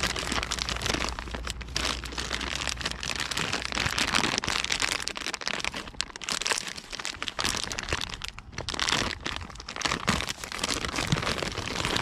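Packaging crinkling and rustling with small crackles as a new replacement hood latch is unwrapped by hand.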